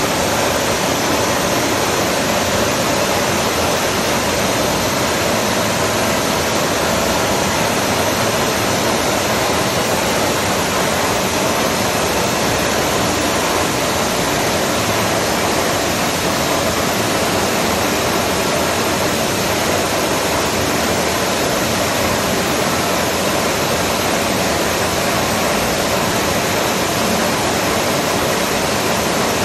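Large milling machine running: a steady, even rushing noise that does not change in pitch or loudness.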